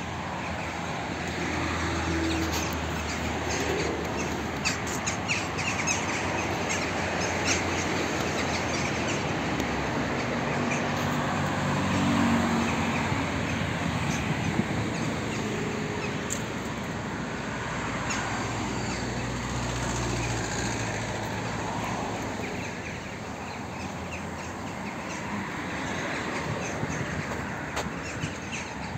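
Outdoor ambience: a steady hiss with the low hum of vehicle engines swelling and fading as they pass, and short high bird chirps.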